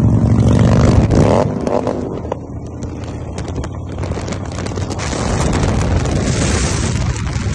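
Harley-Davidson V-twin motorcycles running at road speed, recorded from one of the bikes. The engine note is strongest at the start and shifts in pitch about a second in. After that, wind rush over the microphone takes over.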